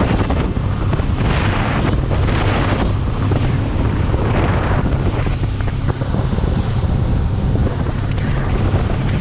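A boat's engine droning steadily as it runs over open water, with wind buffeting the microphone in irregular surges and water rushing along the hull.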